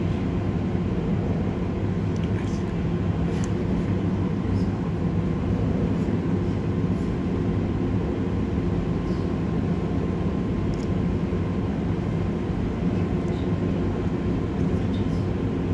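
Cabin noise of a Z 50000 (Francilien) electric multiple unit running between stations: a steady low rumble with a constant hum, and a few faint ticks and rattles.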